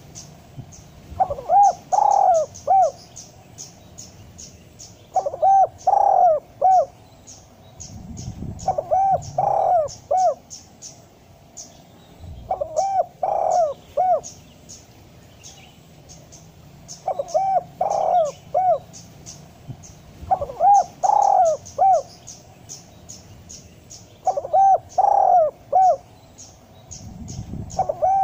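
Spotted dove (tekukur) cooing: a short phrase of several rising and falling coos, repeated about every three to four seconds, seven times. Fast, high chirping runs alongside.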